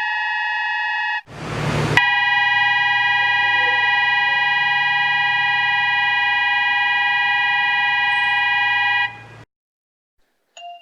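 Seibu Railway platform departure bells, electronic buzzer type. A steady buzzing tone stops about a second in, followed by a brief hiss. Then a second steady, loud buzzer tone sounds for about seven seconds and cuts off, signalling the train's departure. A chime begins right at the end.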